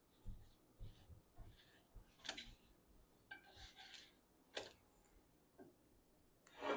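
Quiet room with scattered light clicks and knocks, three of them sharper, and faint rustling in between.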